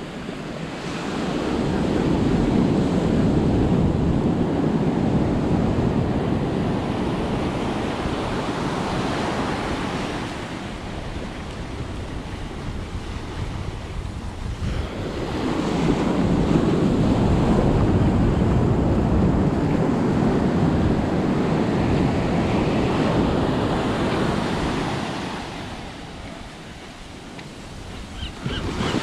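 Ocean surf washing up a sandy beach: the wash swells and fades twice, each surge lasting several seconds.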